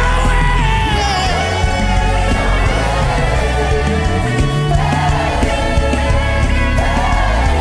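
Gospel worship music: a band with sustained bass and keyboard, and a lead voice singing long, gliding notes without clear words.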